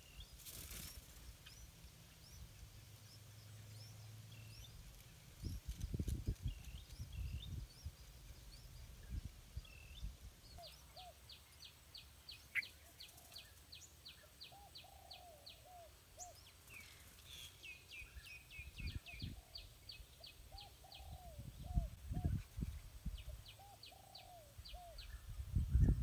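Birds chirping and calling outdoors: short high chirps throughout, quick runs of ticking notes at about four a second, and lower-pitched arched calls from about halfway in. A few low rumbles of mic noise come in around a quarter of the way in and near the end.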